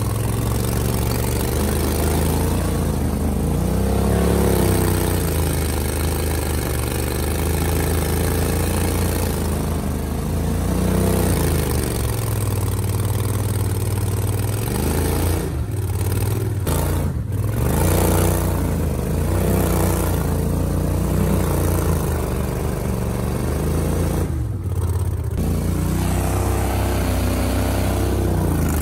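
Gator Tail XD surface-drive mud motor running hard in thick mud and vegetation, revving up and dropping back several times. The throttle comes off briefly about two-thirds of the way in and again near the end. The boat is close to bogging down and the motor is working to churn free.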